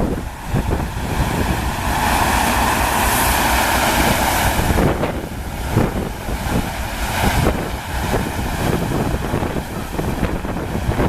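Wind buffeting the microphone over the steady rush of the FlowRider's pumped sheet of water, with a louder rushing surge between about two and five seconds in.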